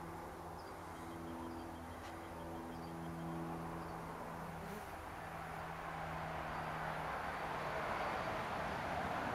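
Outdoor ambience: a steady low machine hum, like a motor running at a distance, with a few faint high chirps in the first seconds. Over the last few seconds a broad wash of noise grows louder and covers the hum.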